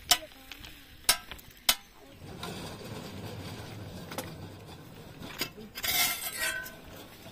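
Sharp metallic knocks and clinks of steel tools on a steel rail at a rail weld joint: three single knocks in the first two seconds, then a short ringing clatter about six seconds in.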